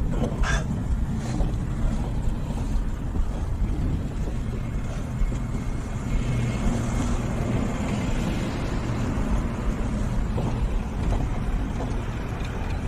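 Steady low rumble of a motor vehicle running, with a brief sharp knock about half a second in.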